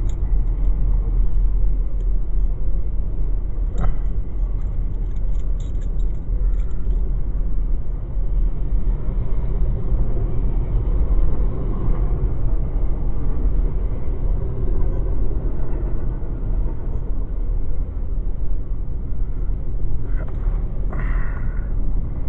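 Car driving, a steady low rumble of engine and road noise, with a faint click about four seconds in.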